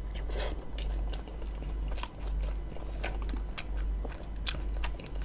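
Close-miked biting and chewing of a soft bread roll with a moist meat filling, with many sharp wet mouth clicks and smacks.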